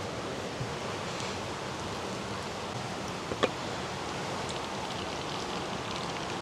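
Steady rushing of a mountain creek, with one sharp click about three and a half seconds in.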